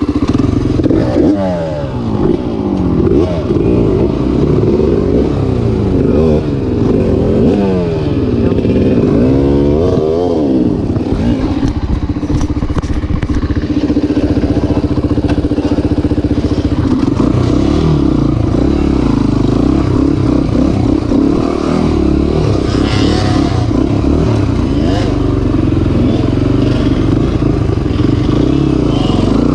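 Honda 250X ATV engine revving up and down repeatedly for the first ten seconds or so, then running at a steadier speed with smaller rises and falls.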